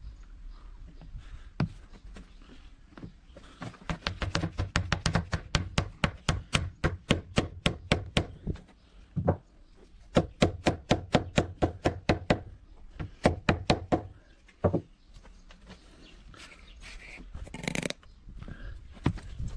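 Wood being struck in quick runs of sharp taps, about four a second, in three bursts with short pauses between them. A brief burst of noise follows near the end.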